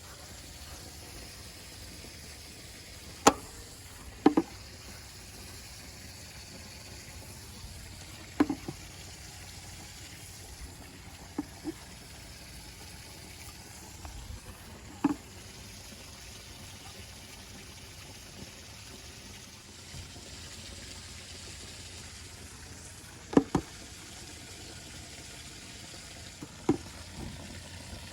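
Steady hiss of water running into an above-ground pool as it fills, with a few sharp clicks or knocks scattered through it.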